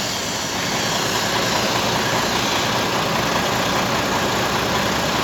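Truck engine idling steadily, with an even noisy hiss over it.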